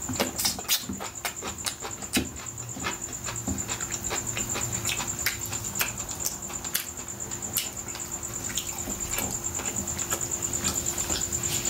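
Close-miked eating sounds: wet chewing and lip smacking on roast chicken, an irregular run of quick clicks and smacks. A steady faint high-pitched whine sits behind it.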